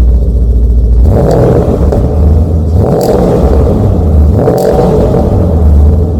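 Porsche Cayenne S engine through a new twin Akrapovič exhaust, idling with a deep burble and blipped up three times, with a short sharp crack near the top of the second and third revs.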